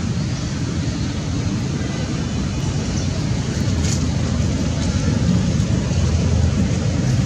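Steady low outdoor rumble with no clear pitch or rhythm, getting slightly louder about two-thirds of the way through.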